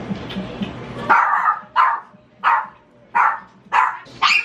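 After about a second of rustling noise, a pet dog starts barking: six sharp barks about two-thirds of a second apart. It is the excited barking she does whenever a familiar man comes in the door.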